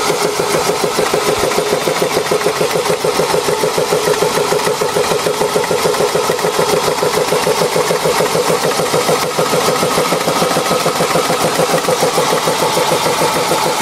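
Homemade air compressor running steadily: a single-cylinder piston compressor driven through a set of pulleys by a 500 W electric motor, pumping with a rapid, even chugging while it charges the air tank.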